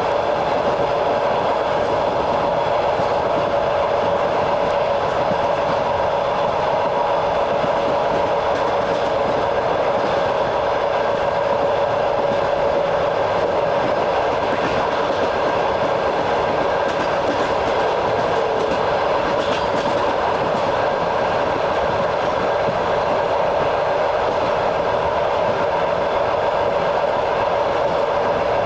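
A train riding along the track, heard from on board: the steady running noise and clatter of wheels on the rails, unchanging throughout.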